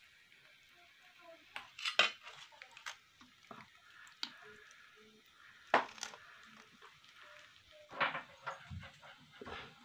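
Steel serving spoon clinking and scraping against a stainless steel pot and plate as curry is ladled onto rice, with a handful of sharp clinks, the loudest about two, six and eight seconds in.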